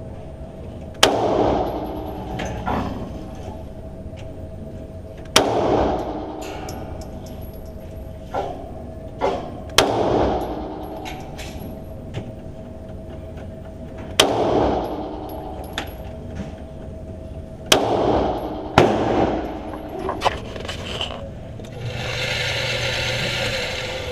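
Hi-Point C9 9mm pistol fired six times in slow, aimed shots a few seconds apart, each shot followed by a ringing echo, with small clicks and knocks between shots. A steady hiss lasts about two seconds near the end.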